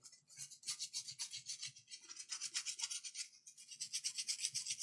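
Brush scrubbing a wet laptop motherboard in rapid back-and-forth strokes, about five a second, with a couple of brief pauses. It is washing sticky sugary residue from a liquid spill off the board with water.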